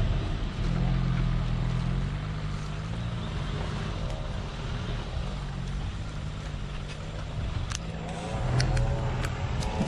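Off-road vehicle's engine running under load, its pitch rising and falling as it revs, with a few sharp clicks or knocks near the end.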